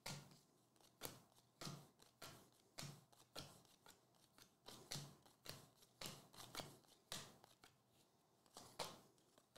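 Faint flicks of glossy baseball trading cards being slid one at a time from the front of a hand-held stack to the back, about two flicks a second.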